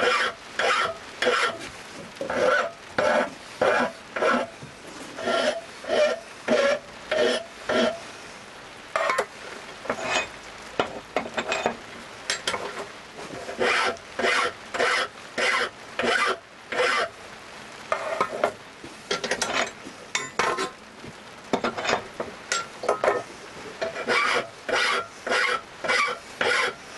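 Flat hand file rasping across the cut edges of steel box-section pieces held in a vice, deburring them. Steady back-and-forth strokes about two a second, going sparser and lighter for a few seconds in the middle.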